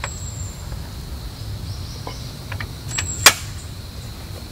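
Camping gear being handled: a few sharp clicks and knocks, the loudest about three seconds in, with two brief high squeaks, over a low steady rumble.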